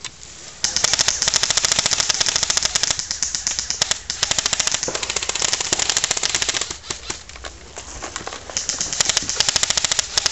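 Airsoft electric rifles firing on full auto: long rapid rattles of sharp clicks, starting about half a second in, easing off about two thirds of the way through, then another burst near the end.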